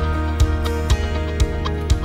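Background music with a steady beat of about two strikes a second over held tones.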